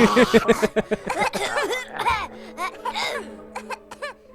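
Person laughing in quick, evenly spaced bursts, over cartoon soundtrack music with a held tone.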